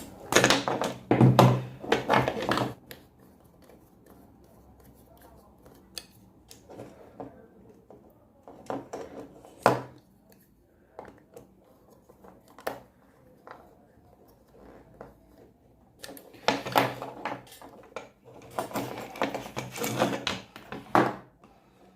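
Clicks, scrapes and rustles of hands working electrical wires into the terminals of a switch board. They come in bursts near the start, around ten seconds in, and again from about sixteen seconds, and are quieter in between.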